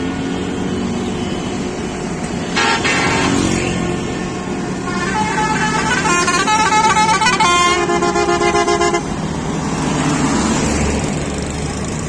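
Bus pressure horn, the multi-tone musical kind fitted to Pakistani buses. It gives a short blast about two and a half seconds in, then from about five seconds a run of quickly changing notes that pulse rapidly before cutting off near nine seconds. Bus engines and road traffic run underneath.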